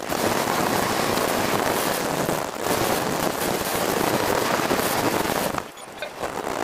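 Wind buffeting the microphone of a camera on an open go-kart moving through traffic, a loud, rough rushing noise that dips briefly about five and a half seconds in.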